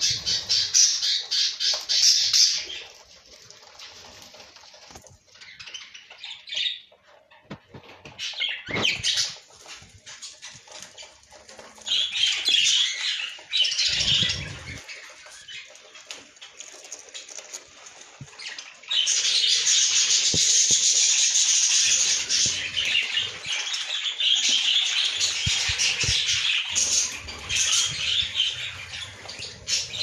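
Budgerigars calling in bursts of harsh, squawking chatter, with quieter gaps in between. The longest, loudest run starts a little past the halfway point and lasts to the end. A few short knocks come in the quiet stretches.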